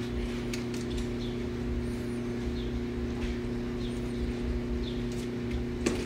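Steady low electrical hum, with a few faint, brief bird chirps scattered through it and light clicks from plastic softener bottles being handled, the clearest just before the end.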